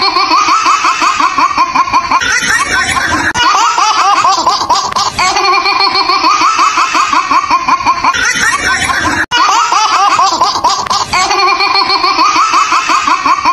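A baby laughing hard: long runs of quick, pitched giggles, one after another with no break.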